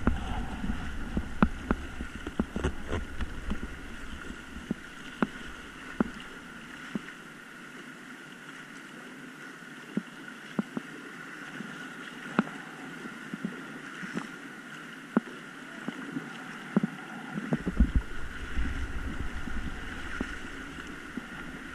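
Inflatable kayak paddled down a fast, high river: water rushing and paddle strokes splashing, with scattered sharp ticks. Wind buffets the microphone at the start and again near the end as the water gets rougher.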